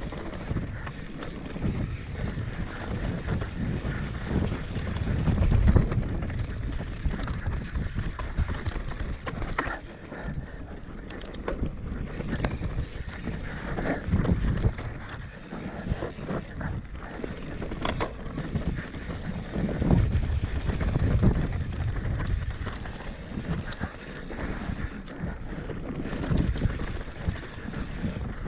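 Mountain bike descending a dry dirt singletrack: tyres rolling over dirt and the bike knocking and rattling over bumps, many sharp clicks throughout. Wind rushes steadily over the camera microphone, with rumbling swells.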